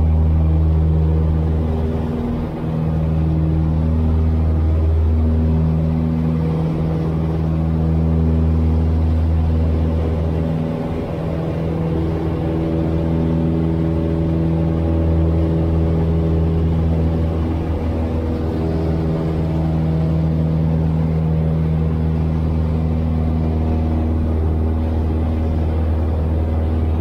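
Piper Tri-Pacer's piston engine and propeller droning steadily, heard inside the cockpit, at power for a soft-field takeoff and climb-out. There are brief small dips in loudness about two and a half and eleven seconds in.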